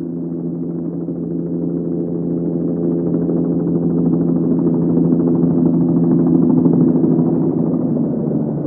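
A sound-effect drone: several low tones held together in a sustained hum that slowly swells louder, peaks about two-thirds of the way through, then eases a little.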